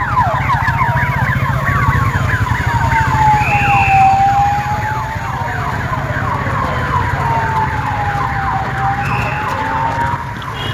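Emergency sirens on passing fire-service vehicles, possibly motorcycles: a slow wail rising and falling every few seconds over a faster, repeated falling yelp, with engine rumble underneath.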